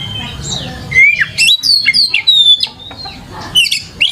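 Oriental magpie-robin singing an energetic song of quick rising and falling whistles and sharp chirps, busiest from about a second in, with another burst near the end. A low steady hum runs underneath.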